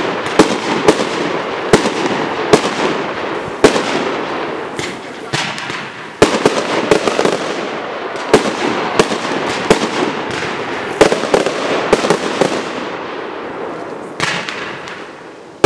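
Aerial fireworks shells bursting overhead: a series of sharp bangs at irregular intervals, often one or two a second, over a continuous noisy wash, dying away near the end.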